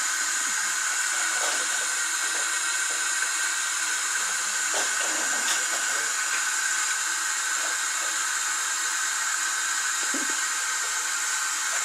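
A steady, even hiss with a faint whine in it, and faint voices in the background.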